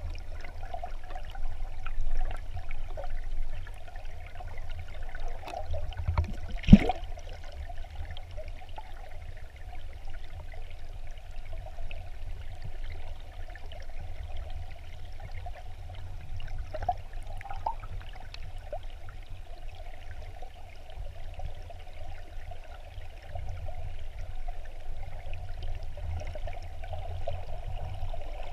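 Stream water flowing over a gravel bed, heard through an underwater camera: a steady low rumble with a fine crackling hiss. About seven seconds in there is one sharp knock.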